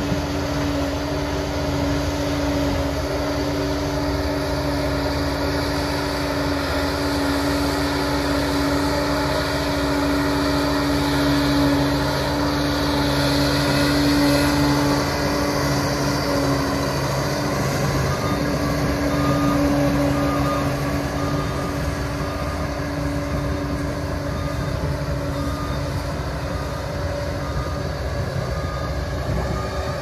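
Liebherr PR 746 crawler dozer's six-cylinder diesel engine working under load as the blade pushes soil, a steady pitched drone that swells twice and eases off a little near the end as the machine moves away.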